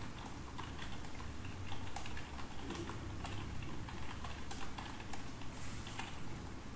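Typing on a computer keyboard: quick, irregular key clicks over a low steady hum.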